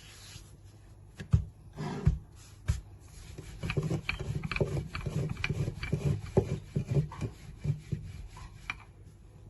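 Rolling pin rolling out a small ball of dough into a flat round: a few knocks as it is set down and shifted, then repeated back-and-forth rubbing strokes with light clicks.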